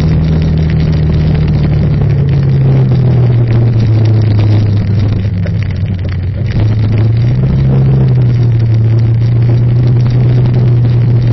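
Vehicle engine running steadily while driving, its note dropping slightly a few seconds in and rising again about seven seconds in, over road and wind noise.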